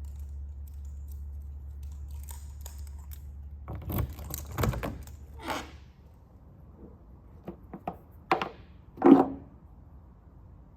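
A steady low hum that stops about four seconds in, followed by a scatter of thunks and clicks, like objects being handled and knocked against.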